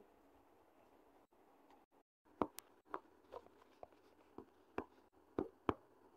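Faint, short, sharp taps on a smartphone touchscreen, about nine in all, starting a little over two seconds in. The last four, about half a second apart, are keypresses on a calculator keypad.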